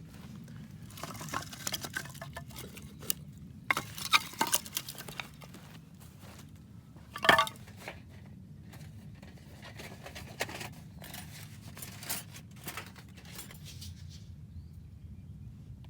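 Scattered clinks and knocks of small hard objects being handled, with one louder ringing clink about seven seconds in, over a steady low hum.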